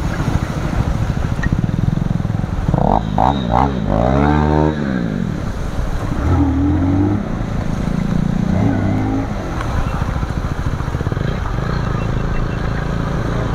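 Motorcycle engine running under way through a flooded street in the rain, over a steady hiss of wind and water. About three seconds in it gives a few quick throttle blips, then a rev that rises and falls.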